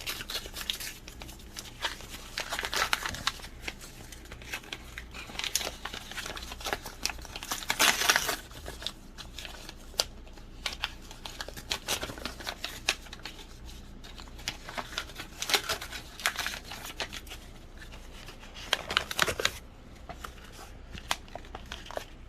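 Packaging being opened and handled by hand: paper and plastic crinkling and rustling in irregular bursts, with scattered clicks and taps. The loudest rustle comes about eight seconds in.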